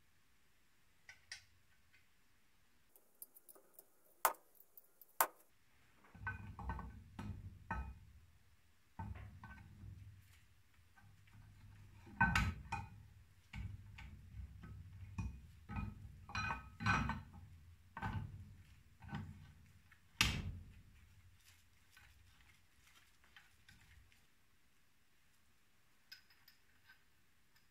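A steel camshaft being slid and turned through the bearing towers of a Mercedes-Benz OM 615 diesel cylinder head. There are a few light metal clicks, then a low rubbing with a run of metal clinks and knocks as it is pushed home.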